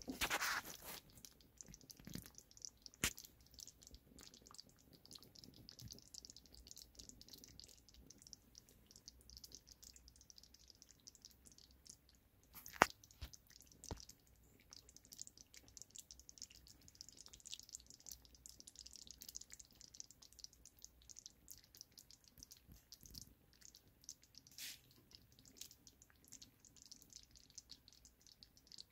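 Chicken-and-dumpling broth, thickened with cornstarch, simmering in a cast iron Dutch oven: faint, irregular small pops and bubbling, with a few sharper clicks here and there.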